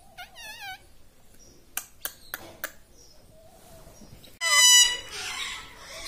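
Indian ringneck parakeet calling: a short warbling chatter, a few sharp clicks about two seconds in, then a loud, harsh screech near the end.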